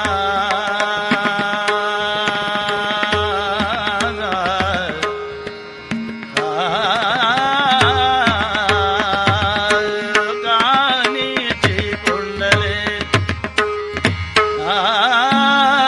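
Marathi gavlan devotional music: tabla beating under a melody with wavy, ornamented notes over a steadily repeated held note, with many sharp clicks. The music thins out briefly about five seconds in, then comes back fuller.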